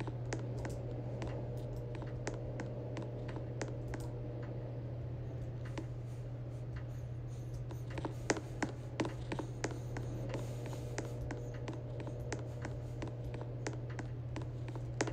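Ceiling fans running, a steady low motor hum, with irregular light clicks and scratches throughout.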